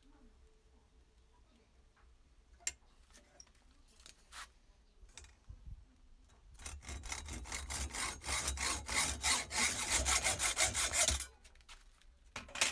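A few scattered clicks and taps, then quick back-and-forth rubbing strokes of abrasive hand work on a part for about five seconds, stopping abruptly.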